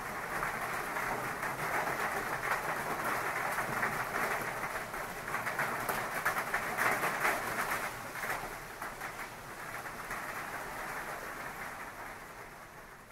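Heavy rain falling in a dense, crackling hiss that gradually fades out near the end.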